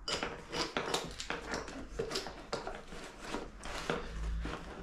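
Hand tools clinking and knocking against each other while being slid into and rummaged for in the fabric pouches of a tool belt, with the pouches rustling: an irregular run of small clicks and knocks.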